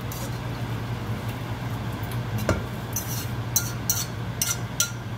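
A utensil scraping and knocking against a frying pan as cooked chicken is tipped out of it into a bowl. There is one knock about halfway through, then a quick run of short scrapes in the last two seconds.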